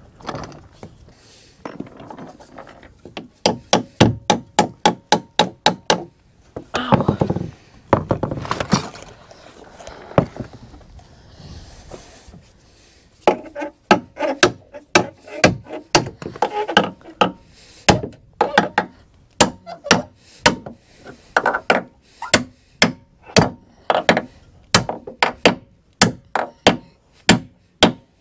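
Hammer blows struck over and over: a quick run of about five a second, then steadier strikes two to three a second. Some blows leave a short metallic ring.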